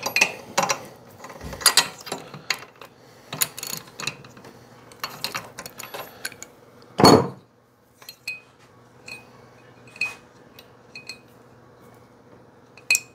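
Spark plug being worked out of a small two-stroke motorcycle cylinder head with a metal wrench: irregular metal clicks and clinks from the tool, with one heavier knock about seven seconds in.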